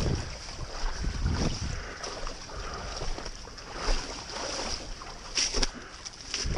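Paddle strokes and water sloshing around a stand-up paddleboard moving through thin broken ice and slush in shallow water, with a few sharp clicks near the end.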